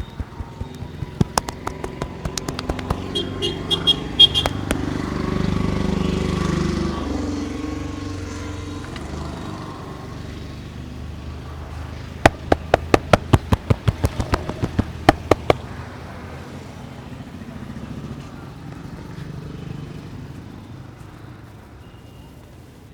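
Street barber's head massage: a fast run of about a dozen sharp, evenly spaced hand strikes, with a few scattered clicks before. Street traffic runs behind, with a vehicle passing a few seconds in, the loudest stretch of the background.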